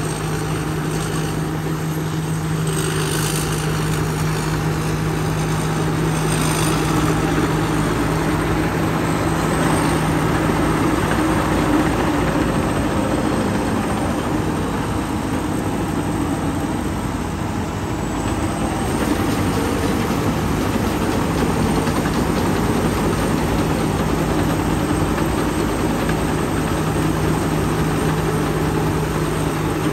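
Somboon Pattana combine harvester's engine running steadily, a constant low hum with no change in speed.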